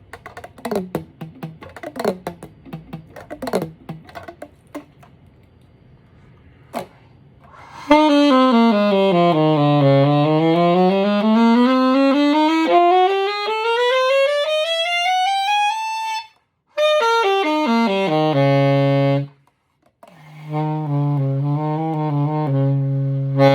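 Yamaha YAS-62S alto saxophone played as a test after a full overhaul: a run down to the bottom of the horn and back up through its range, a short falling run, then sustained notes at the lowest end of the instrument. Quieter plucked guitar-like notes come before the saxophone enters, about a third of the way in.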